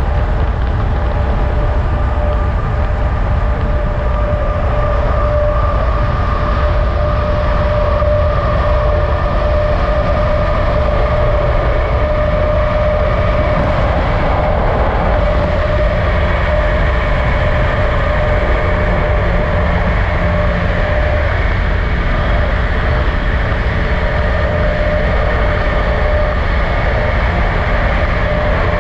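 Steady running noise of a vehicle on the road: a low rumble with a constant drone that does not rise or fall.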